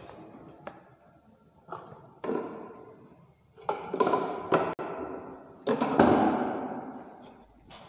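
A series of knocks and thumps from hard objects being moved and set down, about eight in all, several with a short ringing decay; the loudest come around the middle and about two-thirds of the way in.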